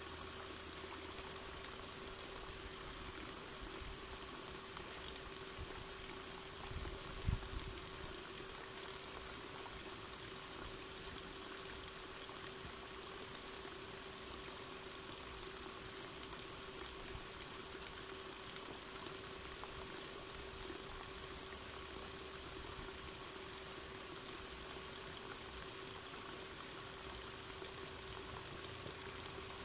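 Steady faint outdoor hiss with a faint steady hum under it, and a couple of soft low thumps about seven seconds in.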